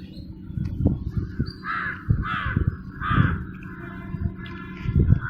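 A crow cawing, three harsh caws in quick succession, with low thumps and rumbling underneath and one louder low thump near the end.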